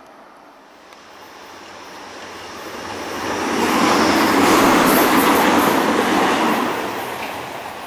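Hamburg S-Bahn electric train passing close by at speed: its running and wheel noise swells from about a second in, is loudest through the middle, and fades away near the end.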